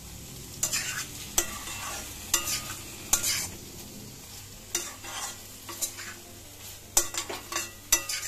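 Spatula stirring and scraping a thick vegetable curry in a pan, with a low sizzle of frying beneath. The scrapes come in about a dozen short, irregular strokes, more of them close together in the second half.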